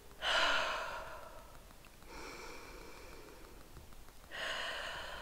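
A woman breathing hard, with three long heavy breaths out; the first is the loudest and fades away. She is out of breath from pushing a loaded touring bicycle up a steep hill.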